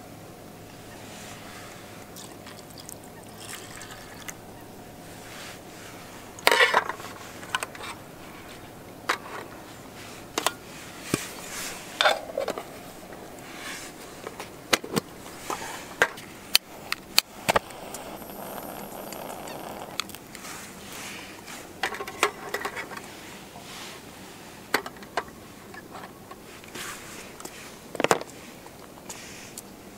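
Scattered clinks and knocks of an aluminium mess tin and a folding metal pocket stove being handled and set down on a camp table, with a lid being fitted. The sharp metallic taps come irregularly over a low steady outdoor background.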